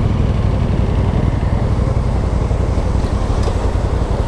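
Adventure motorcycle's engine running at low speed on a rough, rocky dirt track, a steady low rumble with road noise.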